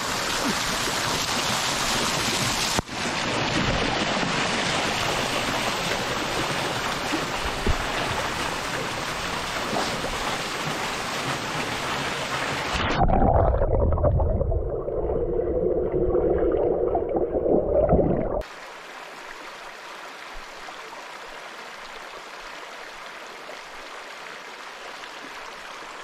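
Waterfall pouring onto rock close to the microphone, a loud steady rush of water. About 13 s in the sound turns muffled, low and bubbling as the camera goes under the water of the plunge pool. After about 18 s, a quieter, thinner flow of a shallow stream over rock.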